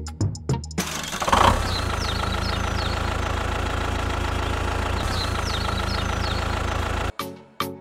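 Tractor engine running steadily from about a second in, with birds chirping twice in the background; it cuts off abruptly near the end.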